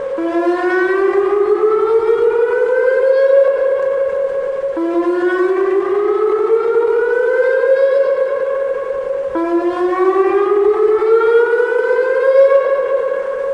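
Whelen WPS-2906 electronic outdoor warning siren sounding its whoop tone, sounded for a severe thunderstorm warning. Three rising sweeps, about four and a half seconds apart, each climb for about three and a half seconds to a steady 560 Hz tone, hold it briefly, then drop back low.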